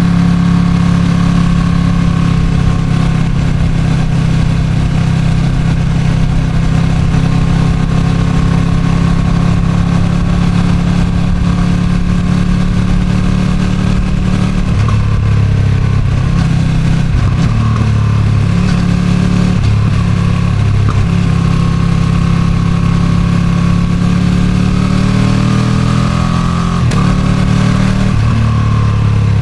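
Ducati Streetfighter V2's V-twin engine with its stock exhaust, running steadily under way, with the engine note falling and rising again about halfway through and once more near the end as the throttle changes. Wind noise rushes over the microphone throughout.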